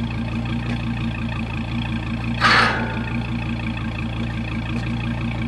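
A vehicle engine idling steadily with an even low pulse, and one short loud burst of hissing about two and a half seconds in.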